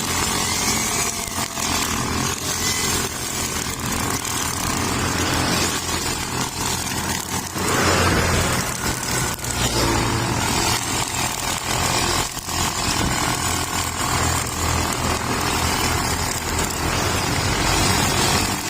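Engine-powered string trimmer (grass cutter with a nylon line head) running steadily, with a louder burst of noise about eight seconds in.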